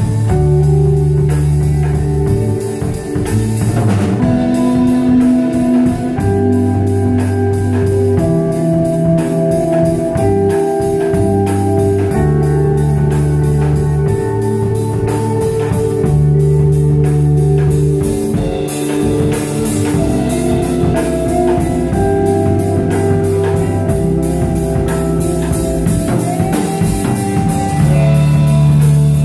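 Live band playing: sustained organ-like keyboard chords over deep bass notes that change about every two seconds, with a drum kit keeping time on cymbals.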